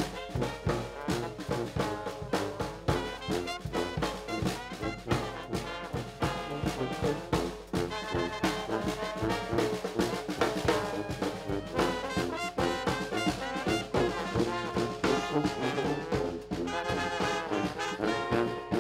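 Brass band playing live: sousaphones, trombone, trumpets, saxophone and clarinet over a bass drum keeping a steady beat.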